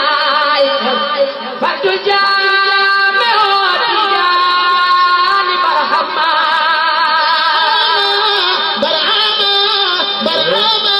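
Islamic devotional song playing: a singing voice with long, wavering held notes.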